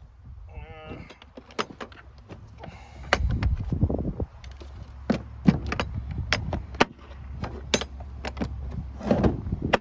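Tools and small hard items knocking and clicking as they are handled and packed back into a box, with a short squeak about half a second in.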